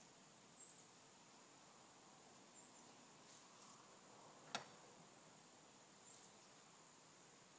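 Near silence outdoors: a faint, steady high-pitched insect drone with a few brief high chirps, and a single sharp click about four and a half seconds in.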